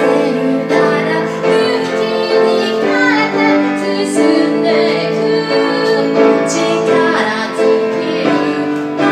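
A woman singing while accompanying herself on a grand piano, with held piano chords under the vocal line.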